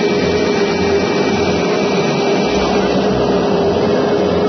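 Steady machine running with a constant hum over a noisy wash of sound.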